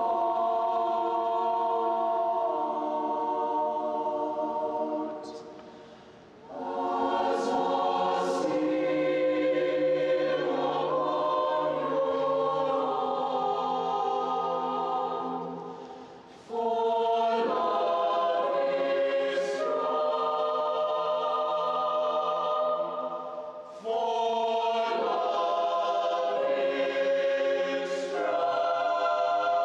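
Mixed chamber choir of men's and women's voices singing unaccompanied, in long sustained chords. The singing breaks off briefly three times, about six, sixteen and twenty-four seconds in, with sharp 's' consonants at the ends of phrases.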